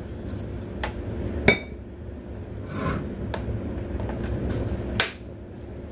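A small ceramic bowl clinking and knocking against an aluminium pot as juice is poured from it onto spice powders: about five sharp knocks. One about a second and a half in rings briefly, and another loud one comes near the end.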